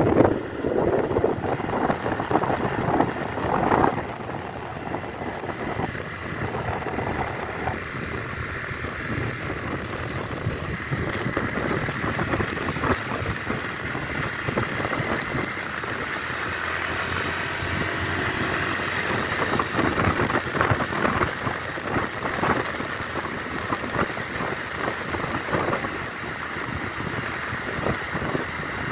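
Yamaha Xeon 125 scooter ridden at speed: wind rushing over the microphone over the engine's steady running, gustier in the first few seconds.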